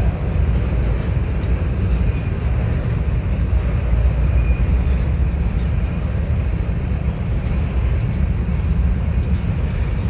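Freight train of covered hopper cars rolling past: a steady, heavy low rumble of steel wheels on rail, with a couple of faint, brief high squeals.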